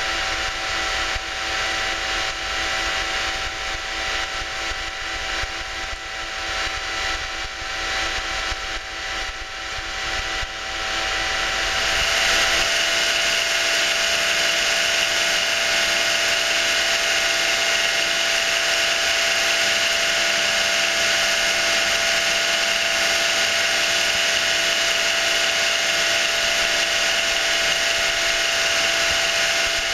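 Cellar pump motor running with a steady whine and a faint pulsing rhythm; about twelve seconds in the sound turns to a louder, even hiss of red wine gushing from a hose into a tub and foaming, over the pump's whine.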